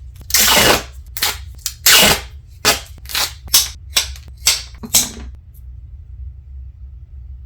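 Duct tape being ripped in quick strips: about a dozen short, loud rips in a row that stop a little after five seconds, over a steady low hum.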